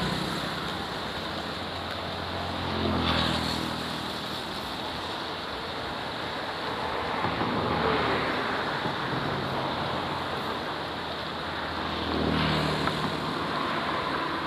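Steady rushing of a flowing river. It swells louder a few times, and some of the swells carry a low engine-like hum.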